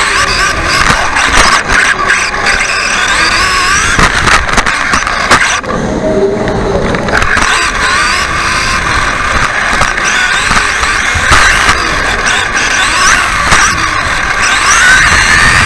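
Onboard sound of an electric off-road RC buggy racing: the motor and drivetrain whine rises and falls with the throttle over a steady rattle of chassis and suspension, with sharp knocks from bumps and landings. Around the middle the high whine briefly drops away.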